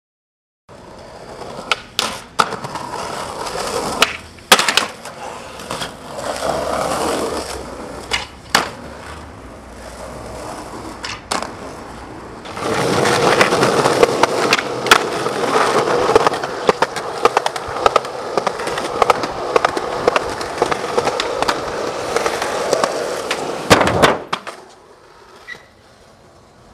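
Skateboard wheels rolling over concrete, broken by repeated sharp clacks of the board hitting the ground. The rolling gets louder about halfway through, and a loud clack near the end is followed by a much quieter stretch.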